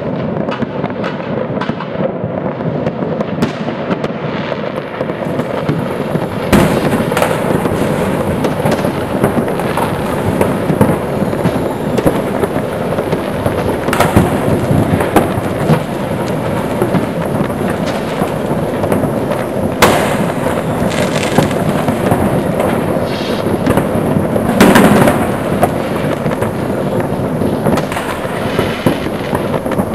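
Fireworks and firecrackers going off all over a city, heard as a dense, continuous crackling and popping. Several louder single bangs stand out, and a longer loud burst of bangs comes near the end.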